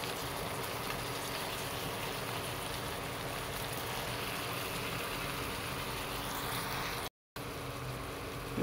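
Thickened braising sauce of cucumbers simmering in a pot, a steady bubbling hiss that cuts out briefly near the end.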